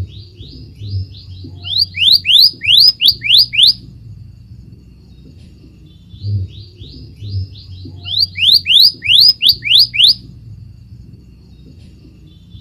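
Scarlet minivet singing: two phrases of quick upslurred whistles, about six seconds apart. Each phrase starts soft and turns loud for its last several notes, over a faint low hum.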